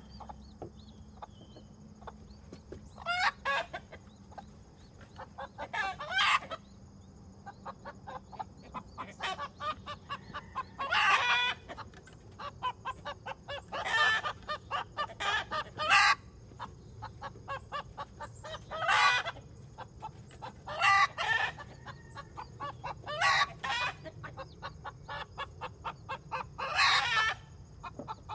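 Hen clucking and squawking: runs of quick clucks rising to a loud squawk every few seconds, about nine times.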